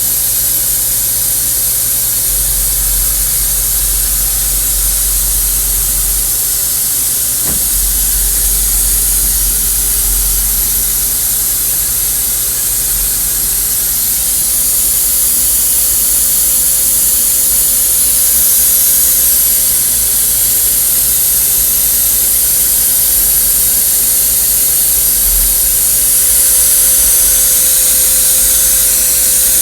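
Steady hiss with one short knock about seven seconds in: a dead-blow mallet tapping a milling vise to bring it into line.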